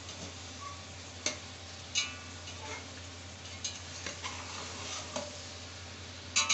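A metal spatula stirring chicken and tomatoes in a large metal pot. It scrapes and clinks against the pot at irregular moments, with the sharpest knock near the end, over a low sizzle of the frying masala.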